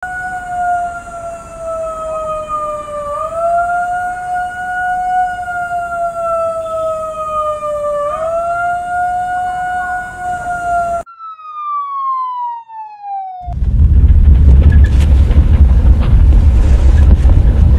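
Wailing alarm siren rising and falling slowly in pitch, the signal of an earthquake drill. About eleven seconds in it sounds alone and winds down in pitch. A loud, deep rumble then takes over.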